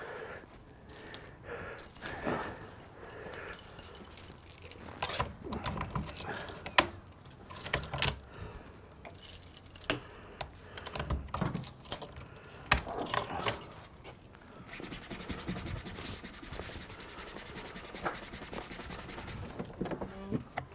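Keys jangling with scattered clicks and knocks as locks on a door and a wooden gate are worked, then a steady hiss for about five seconds near the end.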